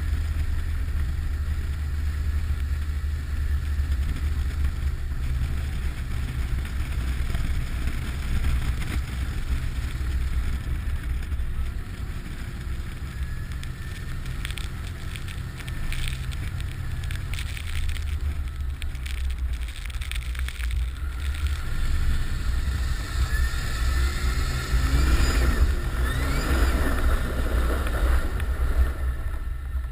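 Nissan Patrol Y60's 2.8-litre turbodiesel engine running under load, with a faint turbo whistle above the low engine drone. Several rising sweeps in pitch about two-thirds of the way in, as the revs climb.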